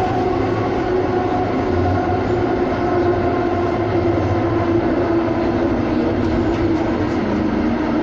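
Inside a U2 light rail car running through a tunnel: a steady rumble of wheels on rail with a constant motor whine, whose pitch drops slightly near the end.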